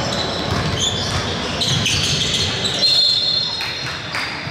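Basketball game on a hardwood court: sneakers squeaking on the floor, loudest in the middle of the stretch, with a ball bouncing, in a large gym.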